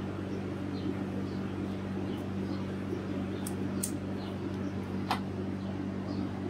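Steady low hum from a running machine, with a few faint ticks as a plastic wiring connector is handled and pushed onto a mass air flow sensor, the sharpest click about five seconds in.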